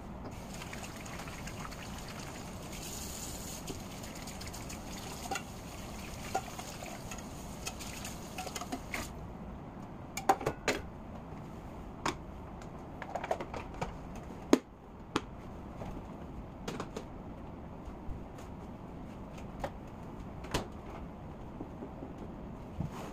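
Bacon sizzling in a frying pan with a steady hiss. Scattered sharp clicks and knocks of a plastic tub and dishes being handled come through it from about ten seconds in, the loudest a little past the middle.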